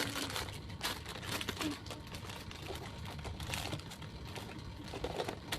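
Plastic blind-box packaging crinkling and rustling in the hands as it is opened: irregular small crackles and clicks.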